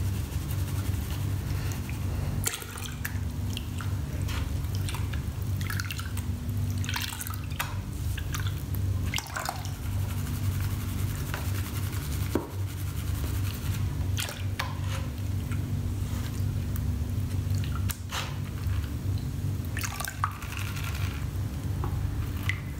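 Water sloshing, splashing and dripping as a green plastic gold pan is shaken and swirled under water in a plastic-lined tub, washing the light sand out of gold concentrates. A steady low hum runs underneath.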